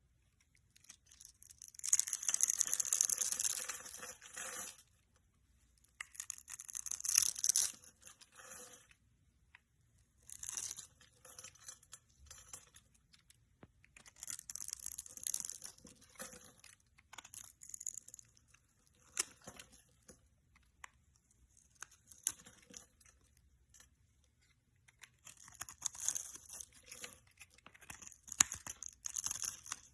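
Repeated bursts of crackly tearing and crunching by hand, each lasting a second or two, with short pauses between; the longest and loudest comes about two seconds in.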